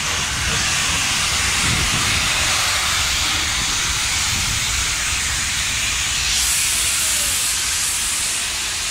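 Steam locomotive 685 089 rolling slowly past at close range, with a loud steady hiss of escaping steam over a low rumble of the train. The hiss turns sharper and brighter about six and a half seconds in, for around two seconds.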